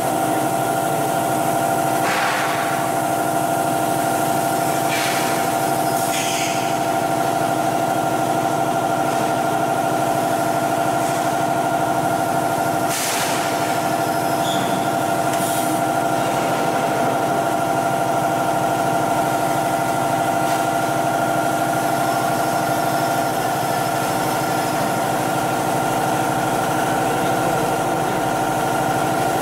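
AccTek AKM1325C CNC router running an automatic tool change at its linear tool rack: a steady machine hum with several held tones, broken by a few short hisses, the sharpest about thirteen seconds in.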